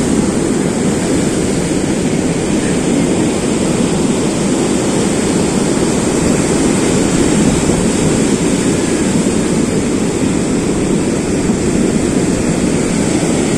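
Steady rushing noise of sea surf, with wind on the microphone.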